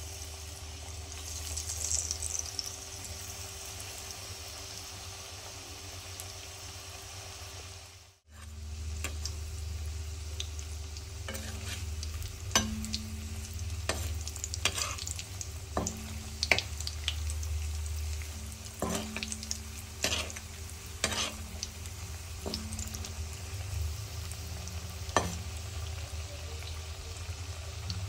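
Breaded vegetable cutlets deep-frying in hot oil in an iron kadai, a steady sizzle. After a short break about eight seconds in, a spatula knocks and scrapes against the pan several times as the cutlets are turned.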